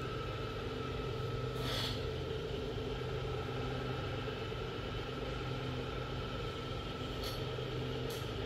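A running machine hums steadily, with brief hissing bursts about two seconds in and twice near the end.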